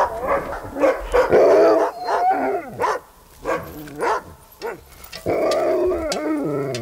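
A yard of Alaskan sled dogs (huskies) barking and yipping excitedly, many short overlapping calls from several dogs at once. Near the end several dogs hold longer yelping, howl-like calls together. It is a team worked up as their musher comes into the yard.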